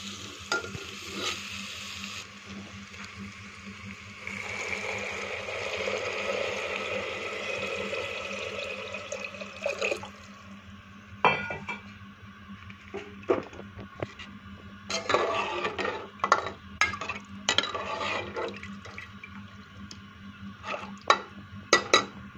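Water poured into a pressure cooker of fried whole masoor lentils and spices, a steady rush lasting several seconds. After that comes a metal spoon stirring and clinking against the pot, with scattered knocks.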